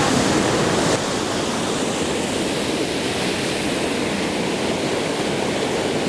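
Oylat Waterfall pouring, a loud, steady rush of falling water, dipping slightly in level about a second in.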